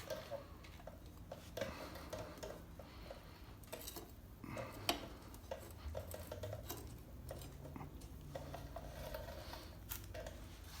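Faint, scattered metallic clicks and light scrapes as brake pads and a thin alignment pin are worked into a motorcycle's rear brake caliper, with a slightly louder click about five seconds in.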